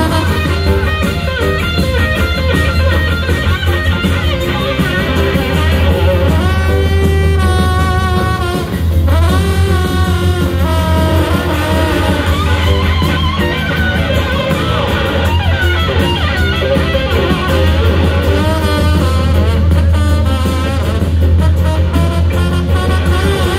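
Live band playing an instrumental passage: electric guitar over drums, bass and a horn section including trombone, with gliding notes partway through.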